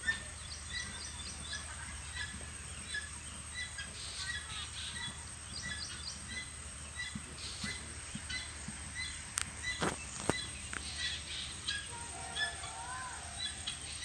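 Small birds chirping repeatedly in the background over steady outdoor noise, with two sharp clicks about ten seconds in.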